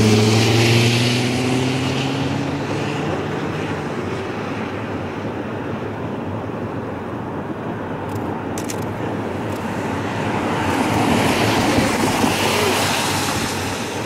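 A train whistle sounding at the start and fading out over the first few seconds, its pitch sagging slightly, then a steady distant rushing rumble of the train crossing the trestle bridge, swelling again near the end.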